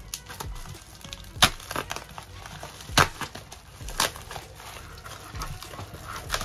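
Hard plastic clicks and knocks with some crinkling as keycaps and their plastic packaging are handled, the sharpest knocks about one and a half, three and four seconds in. Faint background music underneath.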